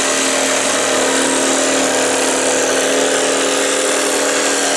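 Rockwell Bladerunner tabletop saw running steadily, its reciprocating T-shank jigsaw blade cutting a curved scroll cut through wood, with a constant motor hum.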